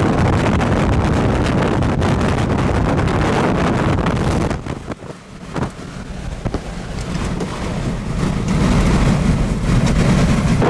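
Strong tornado winds blowing across the microphone, a dense rushing noise. It drops away sharply about halfway through, then builds back up toward the end.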